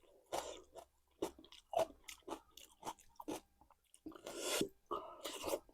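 Close-up mouth sounds of a person eating: irregular wet chewing and crunching of food, with a longer stretch of mouth noise about four seconds in.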